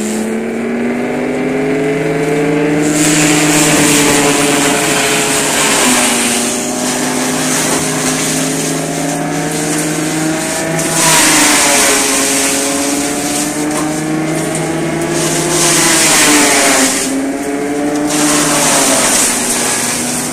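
An engine running, its speed rising and falling slowly several times, with a rushing noise that comes and goes over it.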